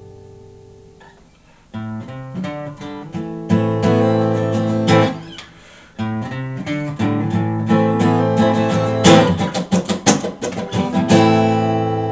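Acoustic guitar being strummed, with no singing. A chord fades away at the start, then a run of strummed chords comes in. There is a short break about five seconds in, quicker strokes around nine to eleven seconds, and a last chord left ringing.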